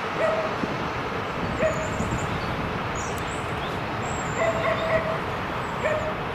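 A dog whining in short, high, steady-pitched calls, four times, the third one longer, over a constant background hiss.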